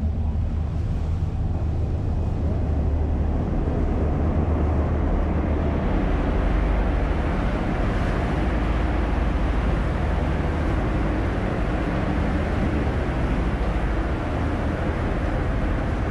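A ferry's engine drones steadily and low, under a rush of water and wind that grows louder a few seconds in.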